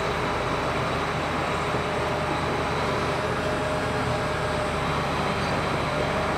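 John Deere 8285R tractor's six-cylinder diesel engine running at a steady low idle while the tractor creeps backward toward a planter, heard inside a metal machine shed.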